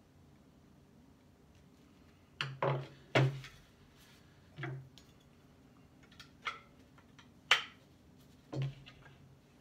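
Sharp clicks and knocks of metal and wood as a blunderbuss kit gun is handled and worked on, about eight of them, irregularly spaced, starting a couple of seconds in.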